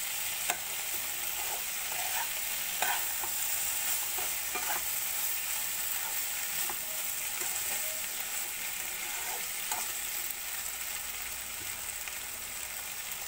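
Pork pieces, sliced onion and bell peppers sizzling in a nonstick pan while being stirred with a spatula, with a few sharp clicks of the spatula against the pan. The peppers get only a brief stir-fry so they keep their crunch.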